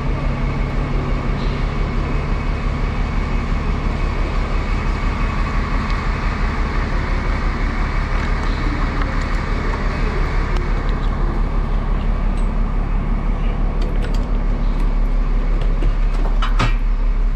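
Air compressor running steadily with a fast, even pulsing beat while it inflates a loader's punctured tyre. A short sharp knock comes near the end.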